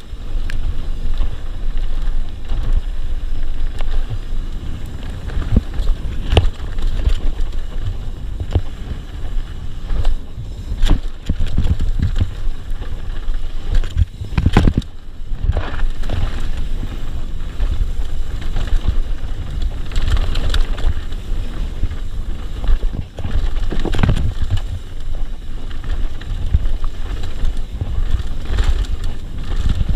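Mountain bike descending a dirt and gravel trail at speed, with wind buffeting the microphone as a steady low rumble. Frequent sharp knocks and rattles come from the bike as it hits bumps.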